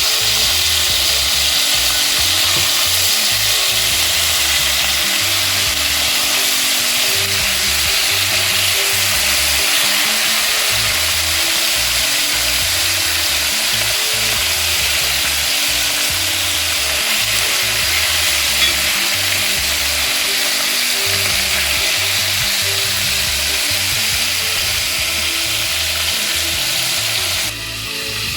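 Chicken pieces sizzling steadily as they fry in oil and butter in a pan. The sizzle cuts off abruptly near the end.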